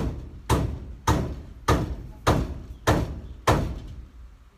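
A steady series of seven heavy thumps, about one every 0.6 seconds, each ringing out briefly before the next; they stop about four seconds in.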